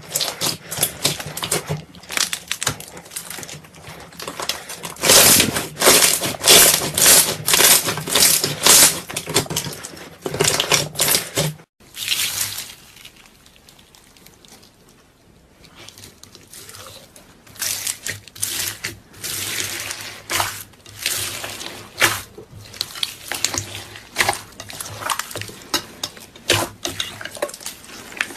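Slime being squished and pressed by hand: a dense run of wet squelches, clicks and pops, with an abrupt break about twelve seconds in before the squishing starts again.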